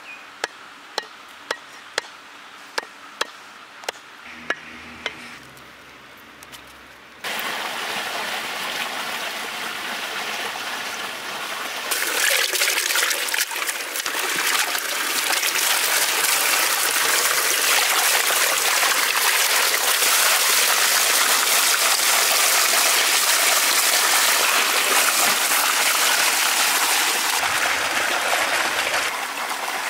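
A knife chopping, about nine sharp knocks less than a second apart; then about seven seconds in, water starts gushing steadily into a steel bowl as prawns and squid pieces are washed, louder from about twelve seconds on.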